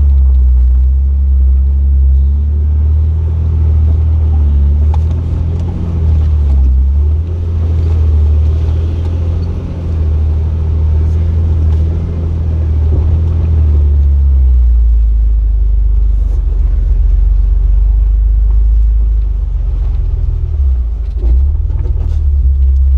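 Jeep Wrangler LJ's engine running at low revs off-road, a loud, steady low rumble whose note changes about two-thirds of the way through.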